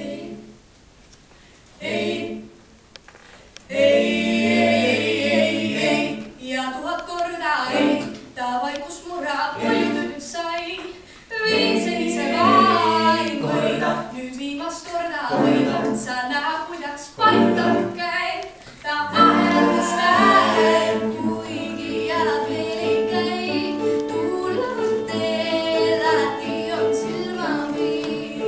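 Mixed vocal quartet, two female and two male voices, singing an a cappella pop arrangement in close harmony with a sung low bass line. The singing begins about four seconds in.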